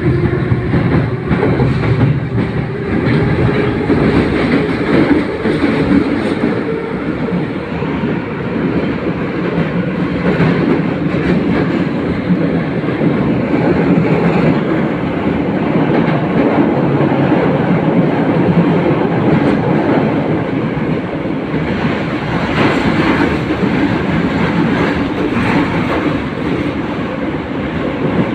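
Kyiv Metro numbered-series subway train running through the tunnel, heard from inside the car: a steady loud rumble with wheels clattering over the rails. In the first few seconds the traction motor whine rises in pitch as the train gathers speed.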